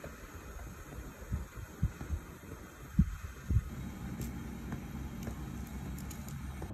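Soft low thumps of hands and utensils handled close to the microphone, with a few faint light ticks in the second half, over a steady low hum.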